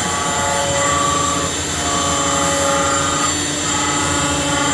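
Spindle of an OKK VP400 vertical machining centre running at about 8,400 rpm. It makes a steady, smooth whine, with higher tones that come and go.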